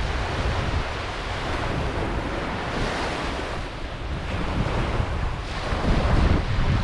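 Ocean surf washing onto a beach in a continuous rush, swelling about halfway through and again near the end, with low rumbling wind buffeting the microphone.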